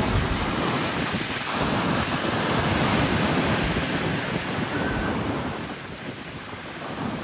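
Atlantic Ocean surf: waves washing in and breaking, swelling louder after a second or two and easing off near the end, with wind buffeting the microphone.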